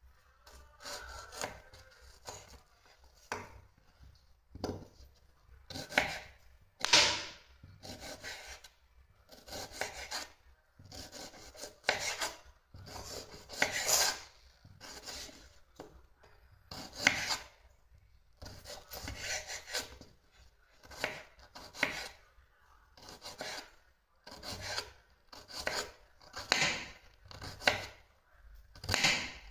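Chef's knife slicing a red onion on a wooden cutting board, about one stroke a second: each stroke is a short rasping cut through the onion ending in a tap of the blade on the board.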